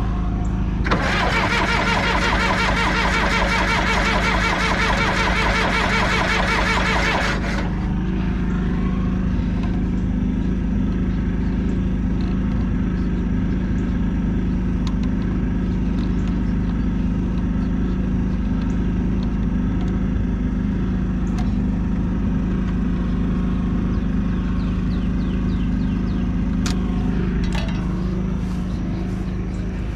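Diesel engine of a John Deere 450C bulldozer running steadily. For the first several seconds a much louder, harsher rapid sound rides over it, then cuts off, leaving the steady engine hum.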